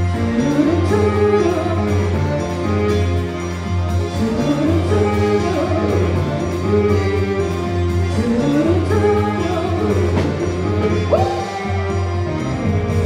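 Quadrilha junina song played loudly: a band with a steady bass line and a singing voice.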